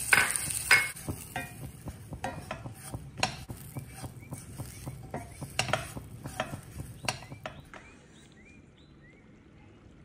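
Wooden spatula stirring and scraping dry biscuit crumbs with butter in a steel pan, in irregular scrapes and taps on the metal, over a faint steady sizzle. The stirring stops about eight seconds in.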